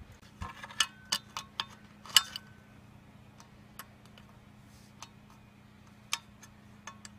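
Sharp metal clicks and ticks from a white-handled hand cutter working the too-long end of a screw that pins a shovel handle in its socket. There is a quick run of clicks in the first two and a half seconds, then single clicks about once a second.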